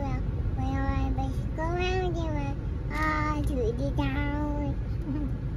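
A toddler singing a run of short sung phrases, some notes held and gliding up and down, with the car cabin's steady low rumble underneath.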